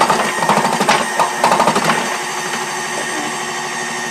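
KitchenAid 13-cup food processor motor running on low while its slicing disc cuts whole carrots into thick rounds, with the carrots feeding themselves down the tube. The choppy cutting clatter stops about two seconds in, leaving the motor running steadily.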